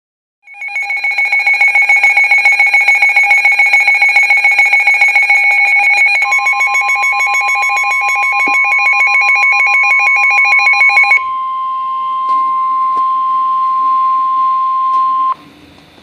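A NOAA weather alert radio sounds its loud alarm, a rapid pulsing beep of about five beeps a second, which stops about eleven seconds in. From about six seconds in, the broadcast's steady 1050 Hz warning tone plays alongside it, then holds alone until it cuts off near the end. This tone is the signal that a warning is about to be read.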